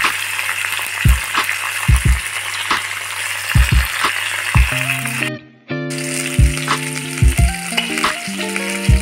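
Fish heads frying in hot oil in a pan, a steady sizzle that cuts out briefly just past halfway and then resumes. Background music with a regular drum beat plays over it, and a melody joins about halfway.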